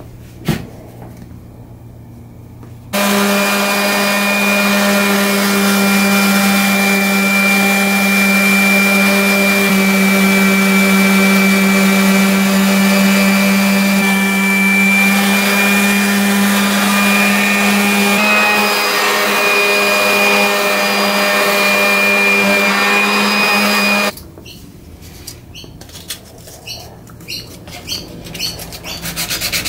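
AEG random orbital sander starting about three seconds in and running steadily for some twenty seconds, a steady hum with a high whine, as it sands dark stain off a wooden tabletop; it cuts off suddenly, followed by light taps and hand rubbing on the wood.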